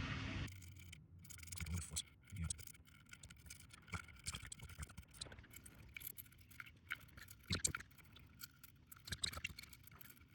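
A small brush scrubbing solder flux off a circuit board with isopropyl alcohol: a rapid, irregular scratching and rasping, after a brief hiss that cuts off about half a second in.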